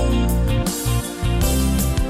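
Background music with guitar and a steady bass.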